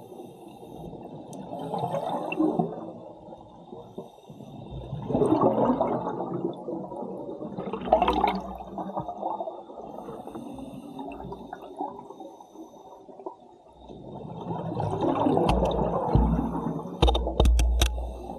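Underwater scuba breathing: exhaled air bubbles from an open-circuit regulator, in gurgling surges every few seconds, with several sharp clicks near the end.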